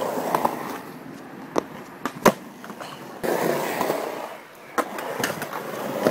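Skateboard wheels rolling on concrete, the rumble rising and falling, with several sharp clacks of the board hitting the ground; the loudest comes a little past two seconds in.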